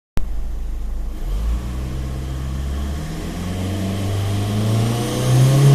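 Turbocharged Seat León engine running, then revving up from about three seconds in, its pitch rising and loudest near the end, with a faint high whistle coming in alongside. The whistle is typical of the turbo noise the owner traced to play in the wastegate valve rod.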